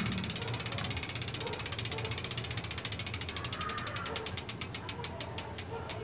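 Mountain bike rear wheel coasting freely, its freewheel pawls ratcheting in fast clicks that slow to separate ticks and stop near the end. The disc brake pads clear the rotor: no rubbing is heard.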